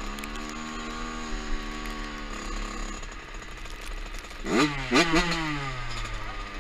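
Two-stroke dirt bike engine running at a steady pitch, then revved sharply twice about four and a half seconds in, its pitch falling away afterward.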